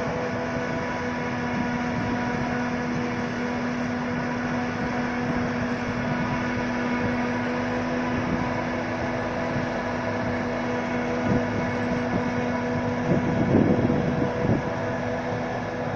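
Steady drone of a forage harvester chopping maize and a Fendt 936 Vario tractor pulling the silage trailer alongside, a hum holding several pitches over a rushing noise. A few louder low rumbles come near the end.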